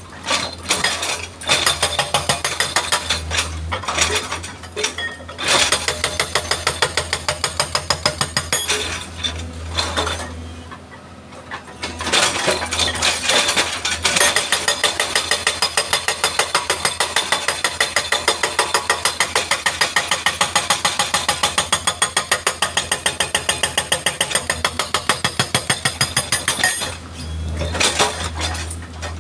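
Hydraulic rock breaker on a tracked excavator hammering a boulder in rapid, even blows, a hard metallic clatter over the diesel engine's steady low running. The hammering pauses briefly about ten seconds in and again near the end, leaving the engine running alone.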